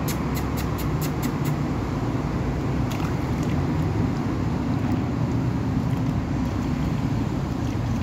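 Steady low rumble of road traffic, with a quick run of about seven sharp clicks in the first second and a half.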